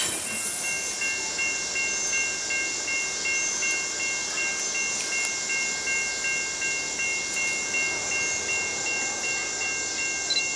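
Railroad grade crossing bell ringing: a rapid, evenly repeated high ding that keeps going while the crossing is active.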